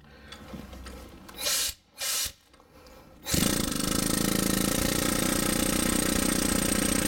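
Pneumatic air hammer hammering on a rusted, seized wheel-bearing snap ring in the front hub, rotating it loose. After two short bursts, it runs in one steady, rapid burst of hammering for about four seconds from a little after three seconds in.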